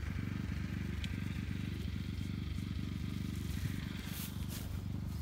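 Small engine of a walk-behind rice binder (reaper-binder) running steadily at working speed, with a brief rustle near the end.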